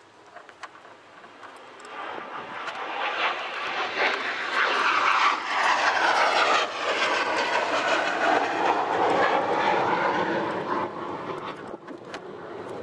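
Airplane passing overhead: engine noise swells over a few seconds, peaks near the middle, then slowly fades, with a sweeping tone that falls in pitch as it goes by.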